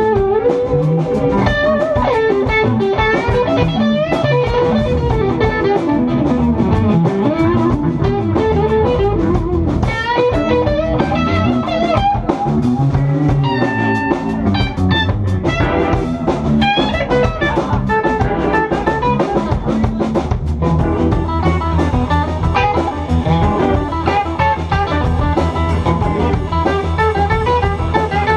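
Live blues-rock band playing: electric guitar lead lines over bass guitar and a drum kit. From about twenty seconds in, the bass holds a steadier low pattern.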